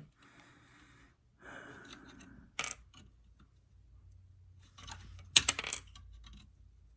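Small hard plastic clicks as the protective dust plugs are pulled out of a Radeon VII graphics card's DisplayPort and HDMI ports. There is a single click about two and a half seconds in and a quick cluster of clicks about five seconds in, with faint handling rustle before them.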